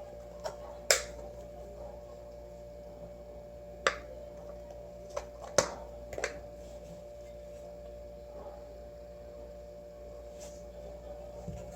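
About six sharp clicks and taps of a spice container being handled, the loudest about a second in and near the middle, over a steady electrical hum.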